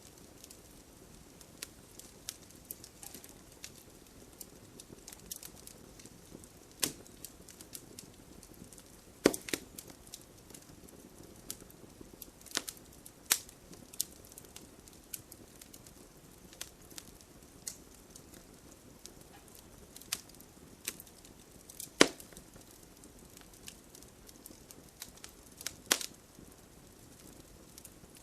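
Wood fire burning in a fireplace: a soft steady hiss with irregular crackles and sharp pops from the burning logs, the loudest pops about a third of the way in and again around three quarters of the way through.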